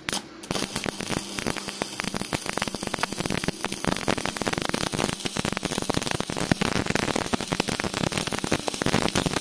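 Stick (arc) welding on a steel shaft held in a lathe: the electrode's arc crackles steadily, starting about half a second in.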